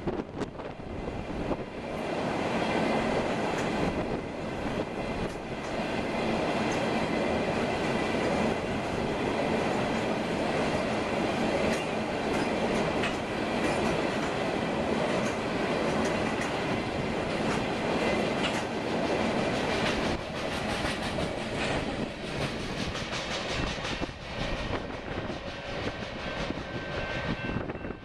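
Freight train of tank cars rolling past: a steady rumble of wheels on rail, with repeated clickety-clack as the wheels cross rail joints. Near the end the last car goes by and the noise begins to fall away.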